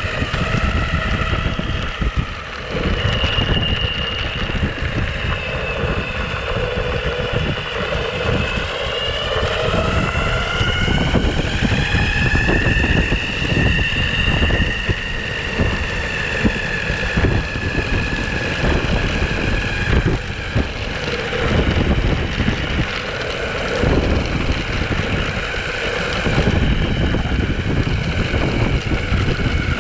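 Belt-drive electric skateboard under way: its motors and belts whine, rising in pitch and then falling again as speed changes, over a steady rumble of wheels on the path and wind on the microphone.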